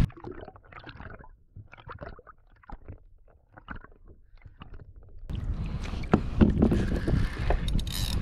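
Muffled underwater sound with scattered faint clicks and crackles for about five seconds, then wind on the microphone and water sloshing and splashing at the kayak's hull, with a few sharp knocks near the end.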